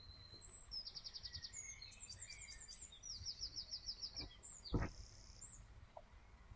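Small songbirds singing high, rapid trills in several short bursts with scattered chirps, and a single dull thump about five seconds in.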